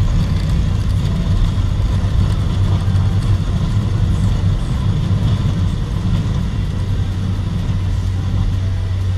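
Single-engine high-wing plane's piston engine running at full takeoff power during the takeoff roll: a loud, steady drone with rushing air noise, heard from inside the cabin.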